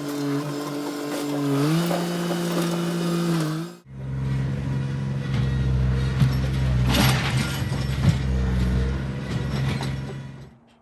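An engine running steadily and speeding up a little just under two seconds in. After a cut, a lower, heavier engine runs with a few knocks and clanks, then dies away near the end.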